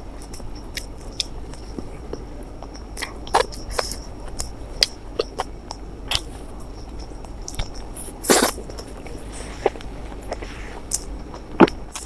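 Close-miked eating: chewing and mouth smacks in irregular sharp clicks, with one louder, longer burst about eight seconds in.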